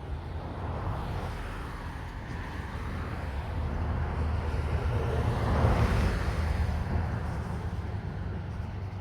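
A passing vehicle: its noise swells to a peak about six seconds in and then fades, over a steady low rumble.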